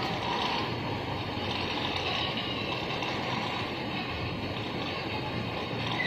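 Toy remote-control car driving over a concrete floor: its small drive motor and plastic wheels run with a steady whir and rattle, mixed with the car's built-in sound effect.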